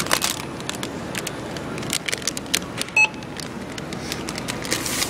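Items being handled at a supermarket self-checkout: rustling and light knocks, with one short beep from the barcode scanner about three seconds in.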